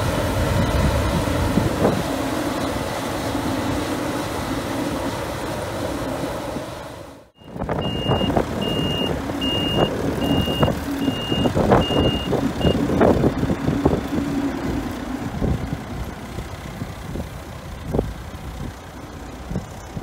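A CLAAS Lexion 530 combine harvester running at work, cut off suddenly about seven seconds in. Then a Case International 885XL tractor's engine running as it tows a header trailer, with a reversing alarm beeping about seven times and scattered knocks and rattles. The engine dies away over the last few seconds.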